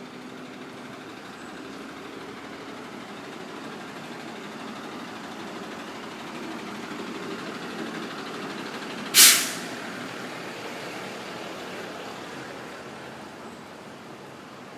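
City street traffic running steadily, broken about nine seconds in by one short, loud hiss of air released from a truck's or bus's air brakes.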